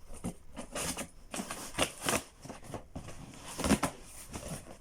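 A cardboard box and its packaging being opened and handled by hand: irregular rustling, scraping and tearing with a few sharper knocks.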